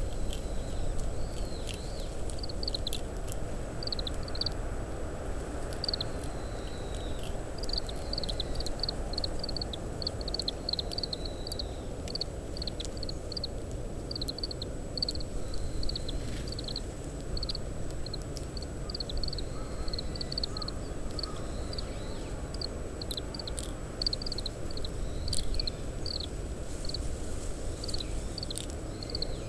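Oriental greenfinches giving their short call notes, many quick chirps in runs, over a steady low rumble of wind.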